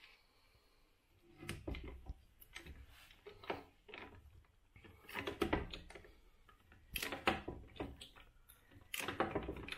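Hand lever pop-rivet gun being squeezed to set a blind rivet: irregular sharp metallic clicks and clacks from its handles and jaws, starting about a second in.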